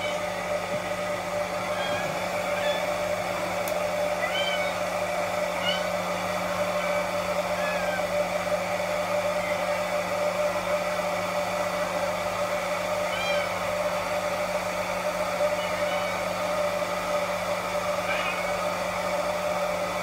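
A Norwegian Forest Cat kitten about a month old mewing: several short, high cries spaced a few seconds apart, over a steady machine whir.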